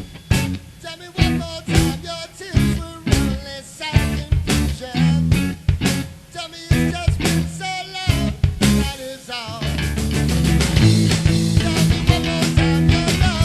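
Rock band playing: guitar, bass and drums with singing. The band plays a sparse stop-start passage of short accented hits, then comes back in fully about nine and a half seconds in.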